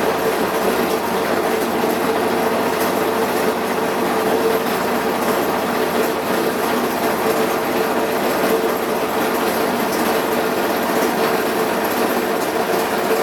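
Washing machine running loudly, a steady rattling noise with a constant hum.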